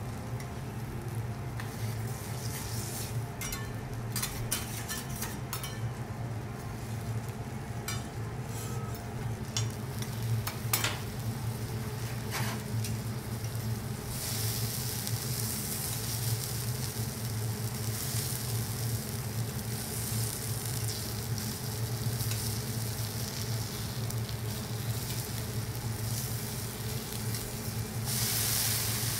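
Food sizzling on a teppanyaki hotplate, with scattered sharp clicks of utensils against the griddle in the first half. The sizzle swells to a dense hiss about halfway through and again near the end, over a steady low hum.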